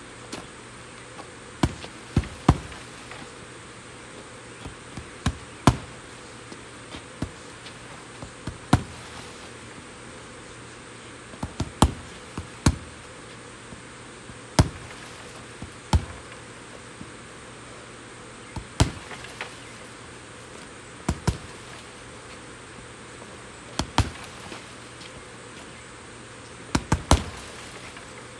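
Punches and kicks thudding into a hanging Everlast heavy bag, single strikes and quick combinations of two or three, every couple of seconds.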